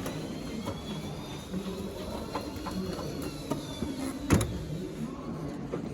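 Steady background hum with a faint high whine that slowly rises and falls, a few light ticks, and one sharp click a little over four seconds in, the kind a washing machine door latch makes.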